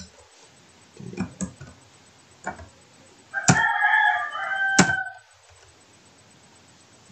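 A rooster crowing once, a single call of a little under two seconds about halfway through, with a few sharp computer keyboard key clicks before and during it.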